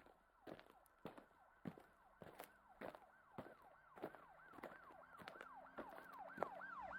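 Faint, quick rising-and-falling siren-like warble, repeating about three times a second and growing louder, over soft regular knocks about every half second.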